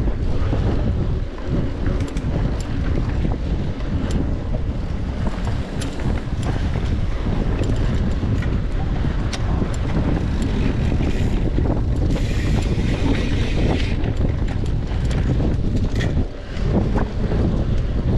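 Wind buffeting the microphone of a camera riding along on a mountain bike, a constant low rumble. Scattered clicks and rattles come from the bike over the trail, with a brief hiss about two-thirds of the way through.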